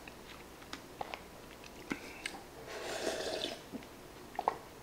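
Sipping hot udon broth straight from a bowl, with one longer slurp about three seconds in and a few faint clicks around it.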